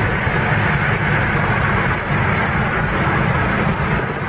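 Steady road, engine and wind noise heard from inside a car's cabin while it drives at highway speed.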